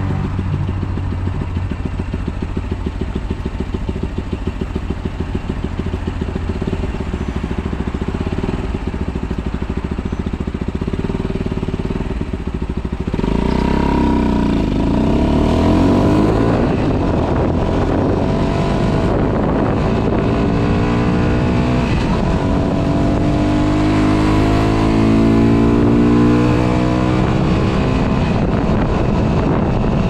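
125cc motorcycle engine idling steadily while stopped, then about 13 seconds in revving and pulling away, its pitch rising and falling as it accelerates through the gears, with wind rush on the camera microphone.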